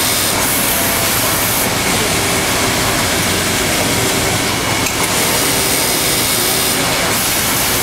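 Pegasus EX5100 high-speed industrial overlock sewing machine stitching fabric, a loud steady mechanical hiss and hum. A higher-pitched whine comes in twice, about half a second in and again around five seconds in, each time for a second or two.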